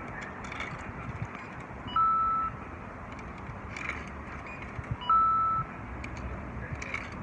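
Coconut vending machine beeping while it works: a short lower blip, then a steady high beep about half a second long, twice about three seconds apart, over steady background noise.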